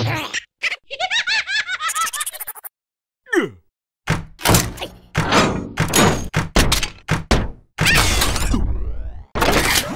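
Cartoon sound effects for a toy robot jerking about: a character's high, rapid warbling voice, a short falling glide, then a quick run of clanks and thuds.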